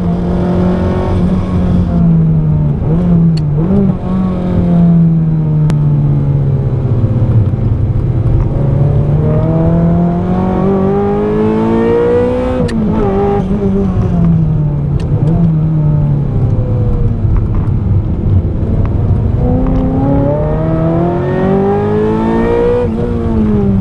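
Ferrari F355's 3.5-litre V8 heard from inside the cabin under hard driving. Its note dips with a couple of quick rev blips, then climbs steadily to an upshift about halfway through. It climbs again through the next gear and drops away near the end as the throttle comes off.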